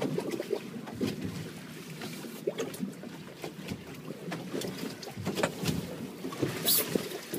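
A small fishing boat on open water: an uneven wash of water against the hull and wind on the microphone, with a few scattered knocks and clicks, the sharpest near the end.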